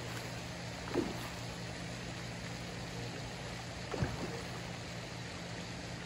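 Steady rush of splashing water from a pond fountain aerator, under a low steady hum. Two brief faint sounds come about a second in and again about four seconds in.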